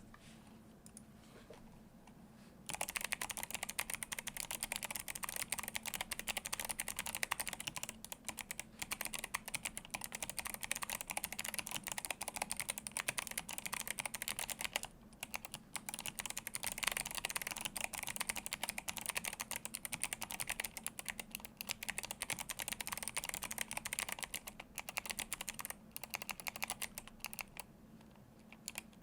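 Typing on an Atreus62 handwired ergonomic keyboard with Kailh Box Jade clicky switches and blank PBT keycaps: a fast, dense stream of sharp clicks. It starts about three seconds in and pauses briefly a few times.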